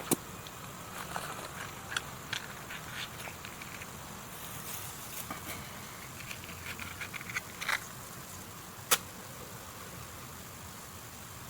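Dry sticks and straw being handled: faint rustling and scattered small clicks, with one sharper click late on.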